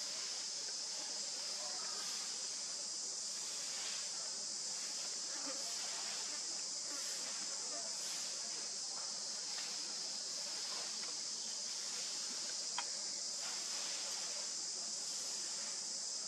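Steady high-pitched insect chorus that runs without a break, with one sharp click about thirteen seconds in.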